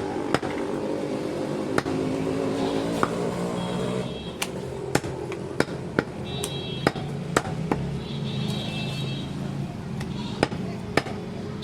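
Mutton being chopped by a butcher: sharp chops at uneven intervals, roughly one a second, with voices and street noise behind.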